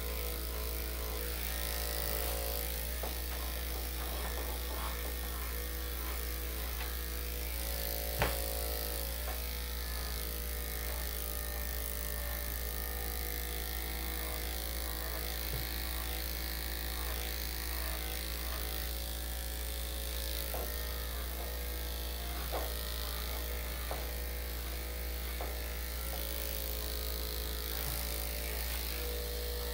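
Electric dog grooming clippers with a #5 blade running steadily, with a few light clicks, the sharpest about eight seconds in.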